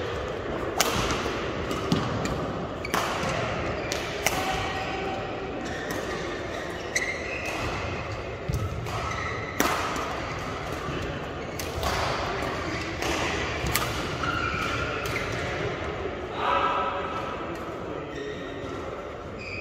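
Badminton rally: sharp racket strikes on the shuttlecock, about one every second or two, echoing around a large sports hall, with short squeaks of shoes on the court.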